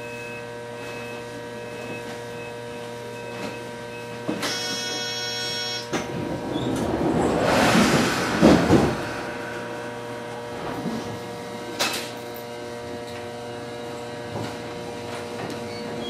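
Electric train's car standing at a station with its electrical equipment humming steadily. A buzzer sounds for about a second and a half a little over four seconds in. A loud hiss of air and the sliding of doors follow at about seven to nine seconds in, with a sharp click near twelve seconds.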